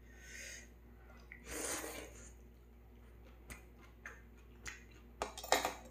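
A person slurping ramyeon noodles, then chewing, with a run of sharp clicks that grows denser and louder near the end.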